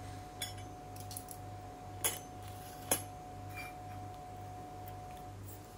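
Kitchenware clinking a few times, three light sharp knocks, the loudest two about a second apart in the middle, over a faint steady hum.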